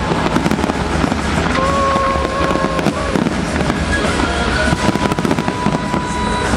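Dense, continuous barrage of firework bangs and crackling, with music playing alongside it; a couple of long held notes sound over the crackle.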